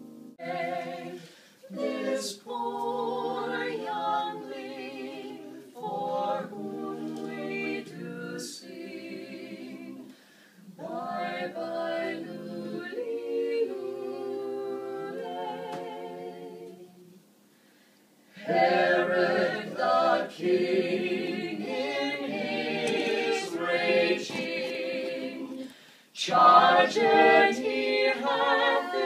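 Mixed vocal quartet, two women and two men, singing Christmas music a cappella in phrases with short breaks between them, louder and fuller from a little past halfway.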